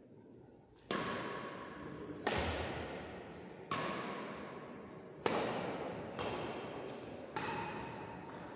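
Badminton rackets striking a shuttlecock back and forth in a rally, six sharp hits about one to one and a half seconds apart, each ringing on in the hall's echo.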